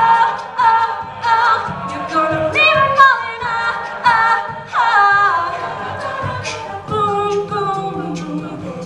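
A cappella vocal group singing a pop song, with rhythmic syllables and sustained harmonies from several voices and a low bass line.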